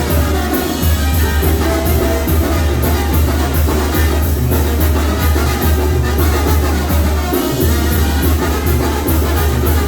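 Loud Latin dance music with heavy bass and a steady beat.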